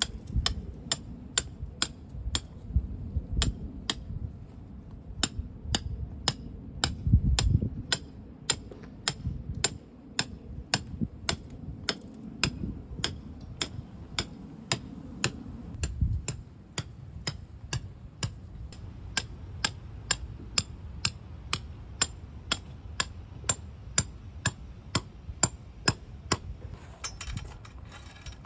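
Steady hammering, about two sharp strikes a second, with a short pause about three seconds in.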